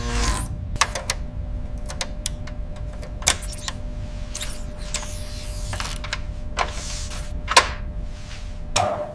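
Mechanical sound effects for an android being adjusted: a steady low hum under scattered sharp clicks and short whirs, with the loudest click about three-quarters of the way through.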